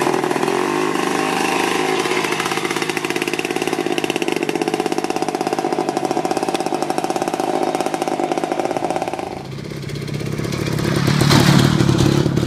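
DKW NZ 350's air-cooled single-cylinder two-stroke engine running steadily as the motorcycle is ridden slowly. About nine seconds in, the sound changes to a deeper, louder engine note that swells and then eases off.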